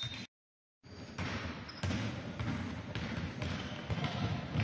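A basketball being dribbled on a hardwood court in a large sports hall, its bounces heard as scattered thumps over steady crowd and hall noise, after a brief gap of silence near the start.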